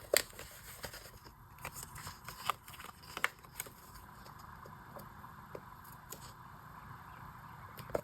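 Paper-crafting handling sounds: scattered light clicks, taps and rustles of sticker sheets and paper being peeled, placed and pressed onto a journal page.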